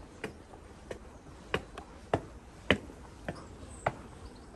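Footsteps of a person walking, sharp and evenly paced at a little under two steps a second.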